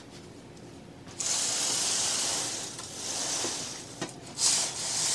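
Floor-length curtain being drawn along its rail: a long swish of fabric and sliding runners starting about a second in, then shorter pulls near the end.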